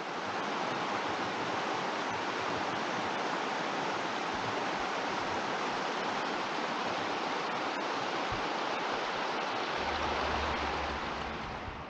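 A steady, even rushing noise that fades in at the start and fades out near the end.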